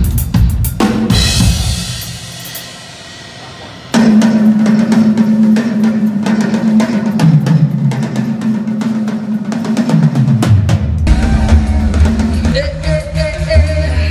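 Live reggae band at a sound check: the drum kit plays, a cymbal rings out and fades, then the full band comes in suddenly about four seconds in, with drums and a steady low bass line, and more pitched instruments joining near the end.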